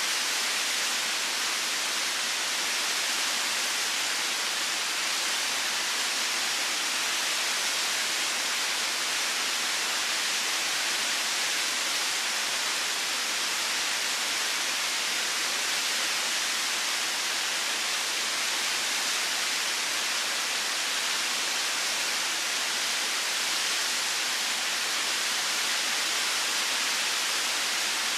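Waterfall: a steady, even rush of falling water, its hiss strongest in the upper range and unchanging in level.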